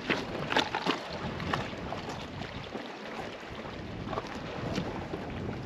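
Wind buffeting the microphone over the wash of the sea on a rocky shore, with scattered sharp clicks: several in the first second and a half and a couple more near the end.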